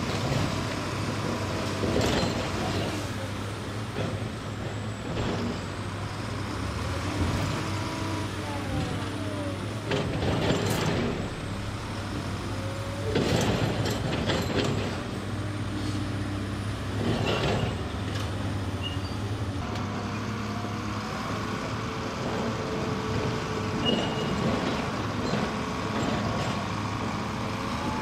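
Heavy diesel engine of an articulated dump truck running steadily while its raised body tips out a load of soil, with a few brief louder surges about 2, 10, 13 and 17 seconds in. In the last third the engine note changes as the truck moves off.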